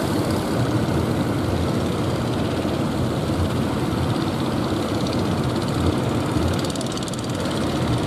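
Engines of motorised outrigger fishing boats running steadily.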